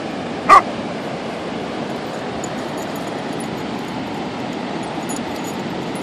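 A dog gives a single short, sharp bark about half a second in, over a steady background hiss.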